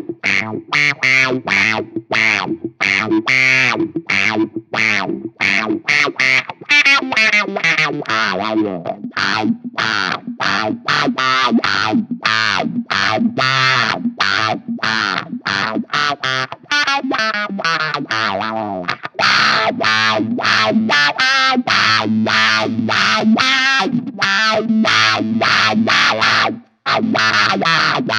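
Electric guitar played through a Dr. No Roadrunner octave fuzz wah pedal: distorted, fuzzy riffs of short, choppy notes, with a few notes sliding down in pitch and a brief stop near the end.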